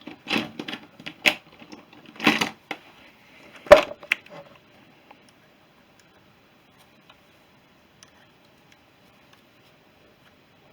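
Small metal parts and hand tools clicking and knocking together during carburettor reassembly: a quick run of clicks in the first few seconds, the loudest a ringing metal knock about four seconds in, then only a few faint ticks.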